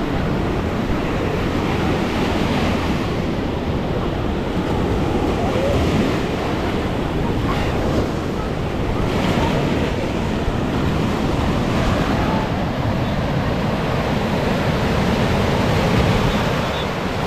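Ocean surf breaking and washing up the beach, a continuous rushing noise that swells gently now and then, with wind buffeting the microphone.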